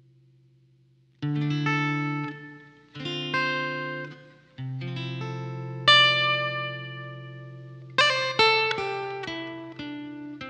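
Solo acoustic guitar: a held note fades away, then plucked chords are struck one by one and left to ring, with a quicker run of notes about eight seconds in.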